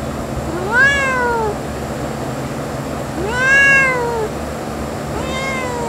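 A cat meowing: three drawn-out meows, each rising then falling in pitch, about two and a half seconds apart; the last is cut off at the end.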